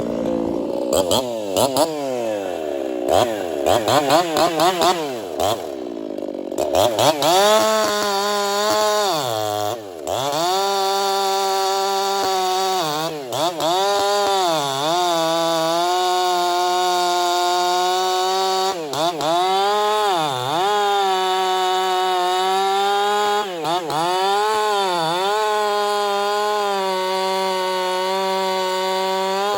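Ported Echo CS-4910 50cc two-stroke chainsaw revving in quick throttle blips, then held at full throttle cutting through a hard, dry red oak log. Its pitch dips briefly several times during the cut.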